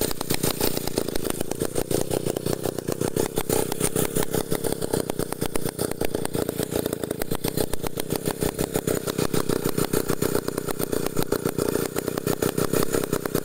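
Small engine of a homemade log-hauling winch running steadily with a fast, even beat.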